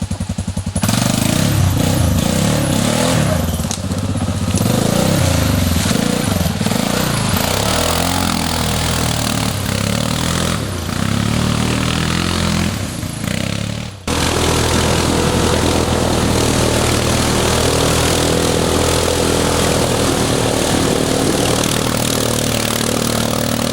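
ATV engine running under changing throttle, its pitch rising and falling. It breaks off abruptly about fourteen seconds in, then carries on at a steadier pitch.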